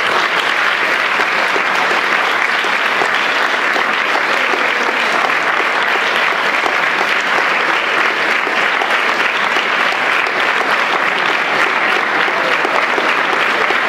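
Audience applauding: many hands clapping at once, steady and dense throughout.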